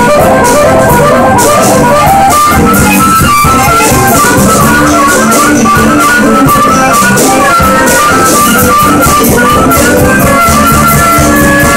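Live blues-rock band playing: a harmonica cupped against a vocal microphone plays a quick melodic line over electric guitars and drums.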